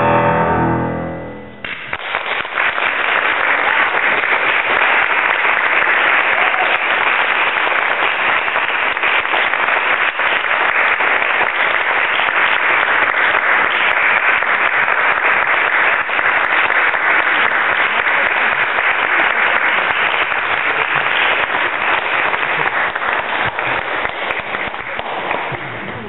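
A grand piano's final chord dies away, and about two seconds in an audience breaks into steady applause, which thins out near the end.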